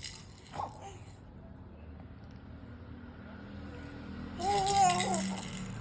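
Baby's rattle toy shaken briefly for about a second, near the end, with a high wavering tone sounding over the rattling.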